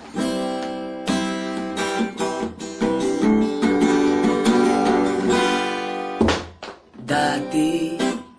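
Strummed acoustic guitar playing chords, with a short break a little before the end.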